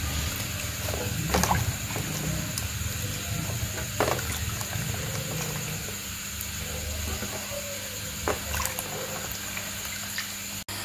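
Hands lifting soaked wild mushrooms out of a plastic basin of salt water and piling them into an aluminium pot: scattered splashes, drips and soft knocks.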